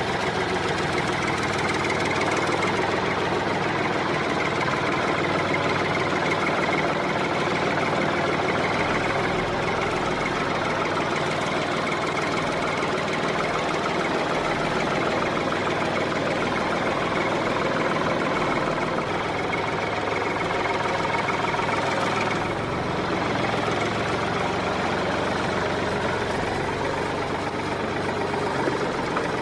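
An engine running steadily at idle, even and unbroken throughout.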